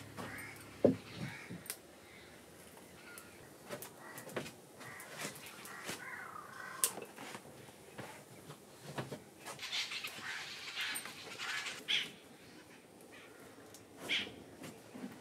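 Crows cawing and other birds calling, with scattered knocks and clicks of kitchen work. A sharp knock about a second in is the loudest sound.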